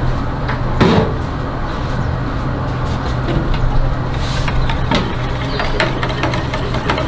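A steady low mechanical hum with scattered light clicks and taps over it.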